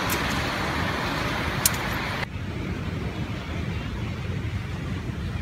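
Wind rumbling on the microphone over a broad surf hiss, with one sharp click just under two seconds in. The hiss cuts off suddenly a little after two seconds, leaving only the low wind rumble.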